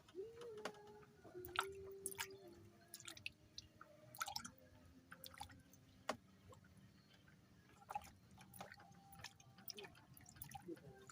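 Faint, scattered clicks and small knocks at an irregular pace, with a faint held tone in the first few seconds that steps down in pitch.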